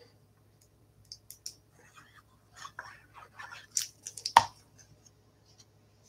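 Light rustling and small taps of cardstock and designer paper being handled and laid onto a card panel, with one sharper click about four and a half seconds in.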